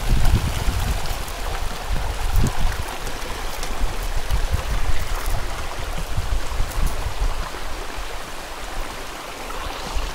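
Shallow stream rushing steadily over rocks and small rapids, with a few low thumps in the first few seconds.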